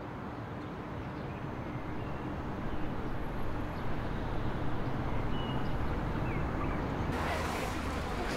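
Steady hum of distant motorway traffic, slowly growing louder, with a few short high chirps; a brighter hiss joins near the end.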